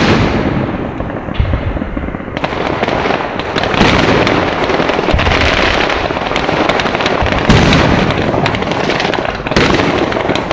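Fireworks display going off: shell bursts and a dense, continuous run of rapid crackling and popping, with a few louder bangs standing out.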